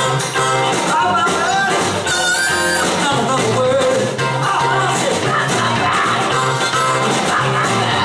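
Live blues-rock band playing, with a harmonica solo wailing through the vocal mic in bending, sliding notes over electric guitar, bass, keyboards and drums.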